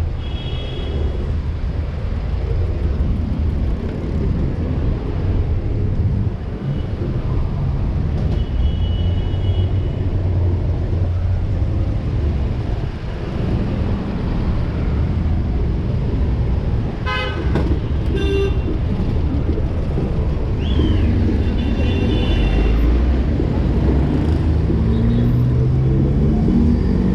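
City street traffic with a steady rumble of passing vehicles and several short car-horn toots. Near the end, a vehicle engine revs up.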